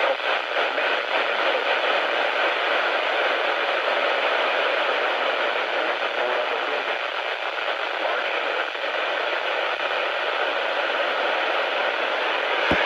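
Radio static from a weather radio receiver: a steady, even hiss with no voice on the channel. A couple of short low thumps come right at the very end.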